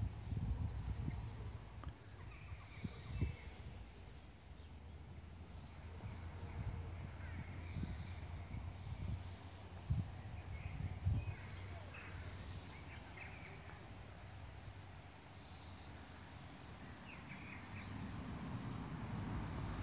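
Small birds chirping here and there in the background over a steady low rumble, with a few dull knocks about three, ten and eleven seconds in.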